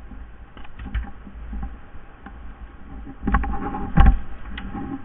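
Footsteps crunching and brushing through dry leaf litter and twigs, with irregular scuffs and a few sharp cracks. The loudest is a single sharp knock about four seconds in.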